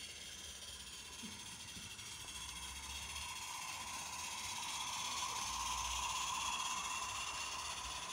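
A live-steam garden-railway locomotive hauling a short goods train past: a steady steam hiss with the mechanical running of the engine and wagons on the track. It grows louder as the train approaches, peaks about six seconds in, then eases off a little.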